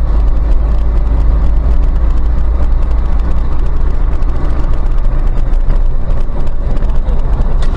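Car driving along a road, heard from inside through a dashcam: a loud, steady low rumble of engine and road noise.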